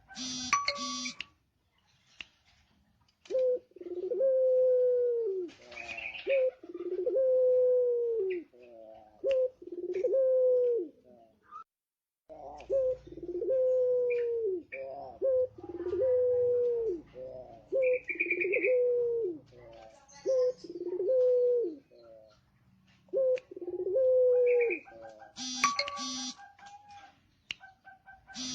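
Male puter pelung (Barbary dove) cooing over and over: a long run of drawn-out coos, each about a second long and dropping in pitch at the end, with short pauses between them. Short, bright, rapidly pulsed chirps come right at the start and again near the end.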